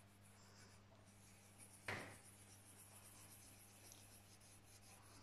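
Graphite pencil scratching faintly on paper in quick small strokes, shading in the dark pupil of a drawn eye, with one sharp tap about two seconds in. A steady low hum runs underneath.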